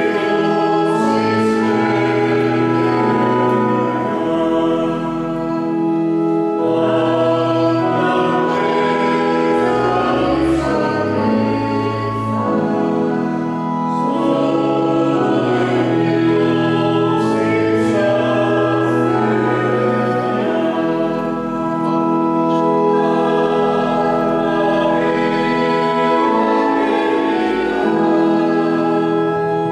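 Church choir singing a hymn with organ accompaniment, in long held chords.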